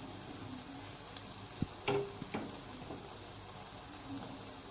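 Chicken gravy sizzling steadily in the pan on a low flame, with a few sharp clinks against the pan about two seconds in.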